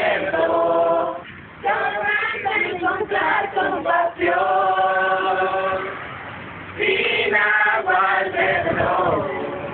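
A group of voices singing together in chorus, in phrases of long held notes separated by short breaks.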